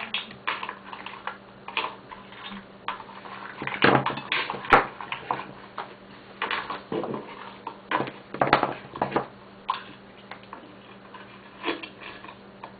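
Small hard pieces clinking and rattling as they are picked up and set down on a work surface, in irregular clusters of clicks with the loudest knocks about four and eight seconds in.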